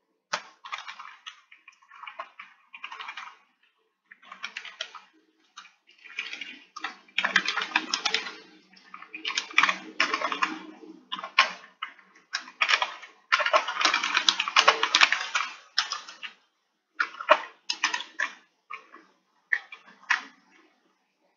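Computer keyboard typing in quick runs of keystrokes with short pauses between them, the busiest stretch in the middle.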